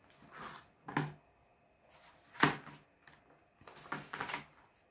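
Hardcover picture book being opened and its paper pages turned on a table: a few short knocks of the hard cover and page edges, about a second and two and a half seconds in, then a longer swish of a page turning near the end.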